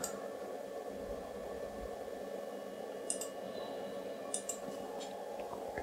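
A few sharp computer mouse clicks, one about three seconds in and a quick pair a second later, over the steady hum of the running iMac G3.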